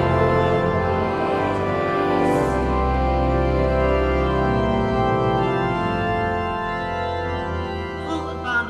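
Church organ playing sustained chords over deep pedal notes, dying away near the end.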